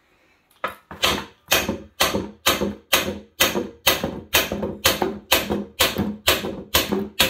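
Repeated hammer blows on metal, about two a second, each with a short ring, knocking loose a part seized in a Honda engine.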